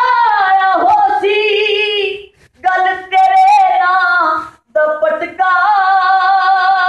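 A male naat reciter singing a devotional naat unaccompanied into a microphone, in a high voice, drawing out long melismatic notes. He breaks off briefly twice, about two and a half and four and a half seconds in.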